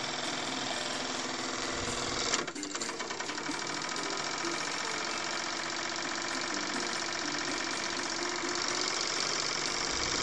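Jensen 75 model steam engine running at speed, a rapid, even mechanical chatter from its piston and flywheel as it drives a small generator. A single sharp knock comes about two seconds in.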